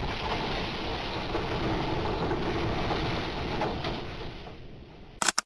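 Seawater from a breaking wave rushing and washing, with wind on the microphone: a steady noisy rush that fades out about a second before the end, followed by a brief loud burst.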